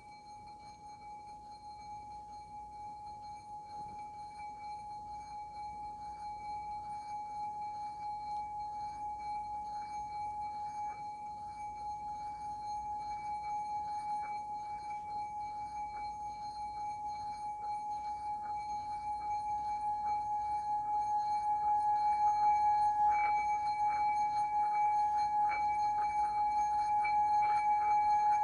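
Small brass chakra singing bowl rubbed around the rim with a wooden mallet: one steady ringing tone that builds gradually louder. Near the end, light clicks come in as the mallet chatters against the rim, and a higher overtone joins the tone.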